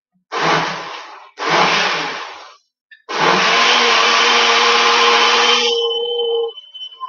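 Countertop blender motor blending a thick cottage cheese, banana and berry shake: two short pulses of about a second each, then a steady run of about three seconds that winds down near the end.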